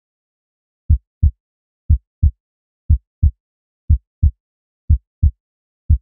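Heartbeat sound effect: paired low thumps, lub-dub, repeating about once a second, six beats in all.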